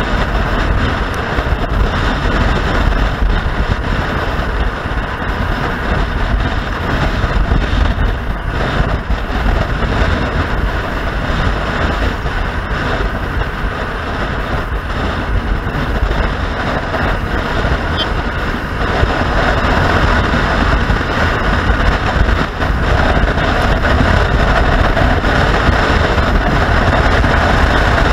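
Wind noise buffeting the microphone of a moving motorcycle, with the engine and road noise beneath it, steady throughout.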